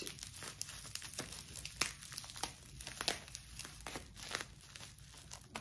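Clear plastic wrapping crinkling and crackling in irregular bursts as it is unwrapped by hand from a small glass perfume bottle.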